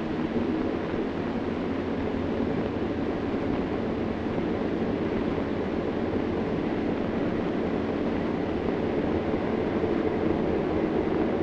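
Tugboat engine running steadily as the tug pushes a barge: a continuous low drone with a steady hum over wash noise.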